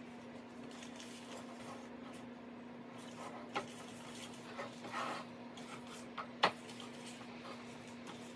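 Butter being rubbed by hand into the cups of a metal muffin tin: faint rustling of the butter's paper wrapper and a few light clicks and taps against the tin, the sharpest about six and a half seconds in, over a steady low hum.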